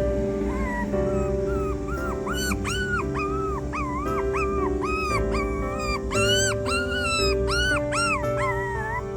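Dog whining in a run of short, high, arching cries, about two a second, over background music.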